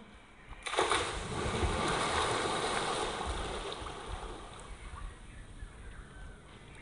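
A person jumping into a swimming pool, slowed to half speed: a sudden splash about a second in, then churning water that slowly dies away over several seconds.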